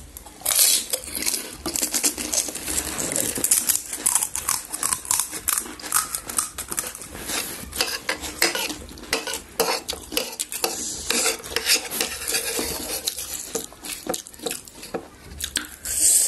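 A spoon clinking and scraping against bowls and plates in quick, irregular taps while panipuri are served and eaten.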